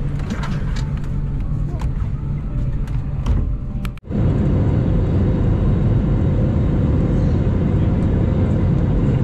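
Airliner cabin noise: a steady hum with small clicks and rustles and a few voices, then, after a cut about 4 s in, the louder, even noise of the jet engines and airflow heard inside the cabin in flight.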